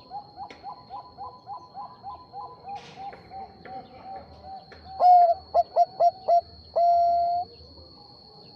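Zebra dove (Bangkok perkutut) cooing: a quieter run of quick short coos, about four a second, then a loud phrase of short staccato coos ending in one long held coo.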